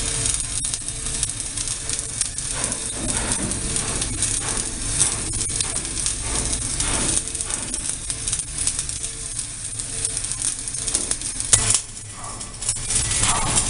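Steady crackling and sizzling of an electric welding arc laying a seam, with a faint tone pulsing on and off underneath. The crackle drops away briefly about twelve seconds in and then resumes.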